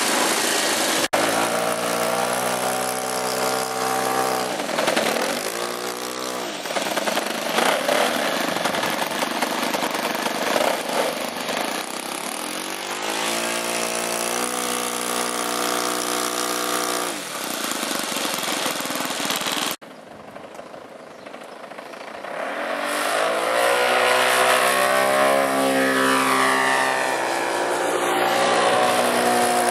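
Engine of a large radio-controlled model airplane running, throttled down and back up several times. After a sudden cut, a model plane's engine swells and sweeps in pitch as it flies past.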